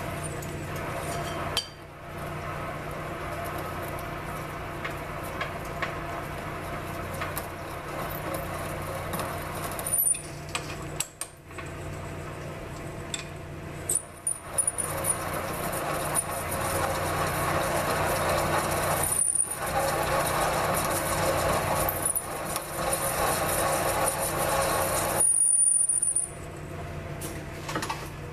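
1942 South Bend lathe running at about 400 RPM with a steady hum, while a center drill in the tailstock drill chuck cuts a center hole in the end of the part in the three-jaw chuck. The cutting noise swells and fades as the drill is fed in, with brief high squeals.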